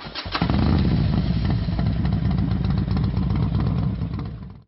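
Motorcycle engine running with a deep, rapidly pulsing exhaust note, then cutting off abruptly near the end.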